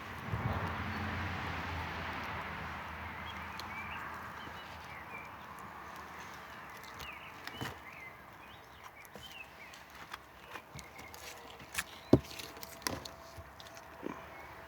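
Campfire wood crackling with scattered sharp pops, the loudest about twelve seconds in. A rushing noise swells just after the start and fades over a few seconds.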